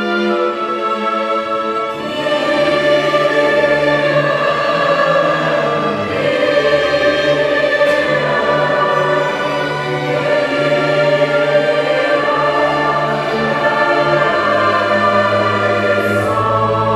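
Mixed choir singing with chamber orchestra accompaniment in a sacred Mass setting. The choir comes in fuller and louder about two seconds in, over sustained low strings.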